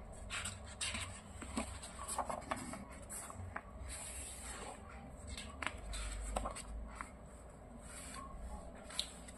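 Large paper sheets handled and turned by hand: paper rubbing and rustling, with scattered light crackles and taps as pages are lifted and laid down.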